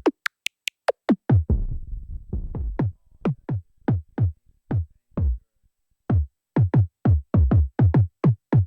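Drum-machine sounds finger-played on pads: a run of deep kick or bass hits, each dropping sharply in pitch. A few high falling tones come about half a second in. There is a short pause past the middle, then a quicker run of about four hits a second near the end.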